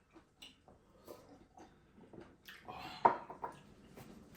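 Small clicks and taps of chopsticks and dishes during a meal, with one louder clink about three seconds in.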